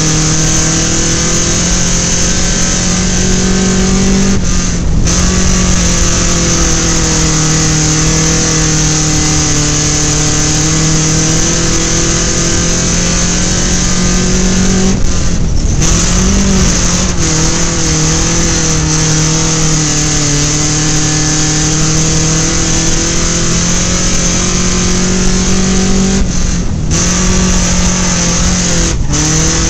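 A compact dirt-track race car's engine running hard at high revs, heard from inside the car. The engine note holds steady and drops briefly three times, about eleven seconds apart.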